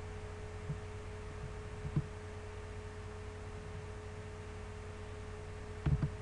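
Steady low electrical hum with a thin constant whine, picked up by the recording microphone. A few soft knocks fall into it, the plainest near the end.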